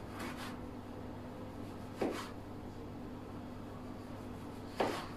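Kitchen knife slicing a tomato on a plastic cutting board: faint cuts, with two sharper knocks of the blade on the board, about two seconds in and again near the end, over a steady low hum.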